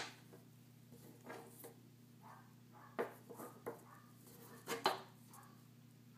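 Hands working a paracord bracelet with a fid: scattered small taps, clicks and rubbing of cord and tool, sharpest at the start, about three seconds in and just before the five-second mark, over a steady low hum.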